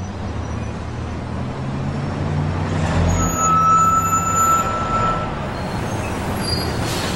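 Road traffic: a heavy vehicle rumbling past, getting louder toward the middle and then easing off, with a steady high whine for about two seconds in the middle.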